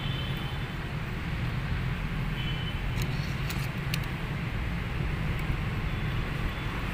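Steady low rumble of a motor vehicle engine running, with a few light clicks midway.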